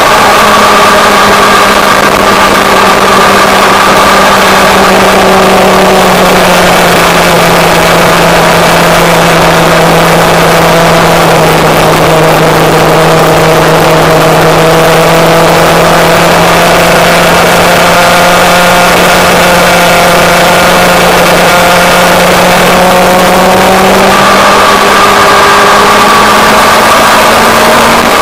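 Motorcycle engine running at a steady cruising speed, with wind rushing over the microphone. The engine note sags slightly lower through the middle, then rises again near the end.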